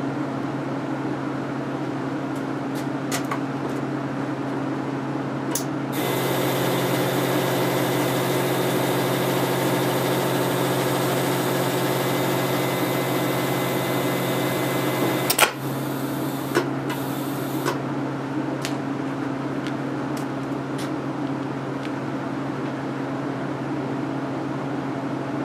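AC arc welder humming steadily, its output driving current through a dead D-cell alkaline battery and the thin wire leads to it. About six seconds in a louder hiss joins the hum. It cuts off with a sharp crack about fifteen seconds in, and a few smaller crackles follow.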